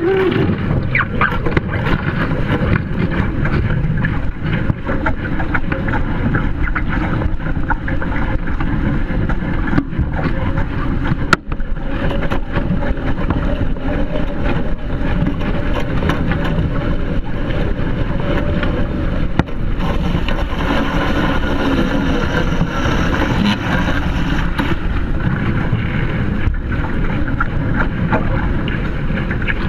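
Wind buffeting the microphone over the steady rush and splash of a Hobie Tiger Formula 18 catamaran's hulls driving through chop at speed.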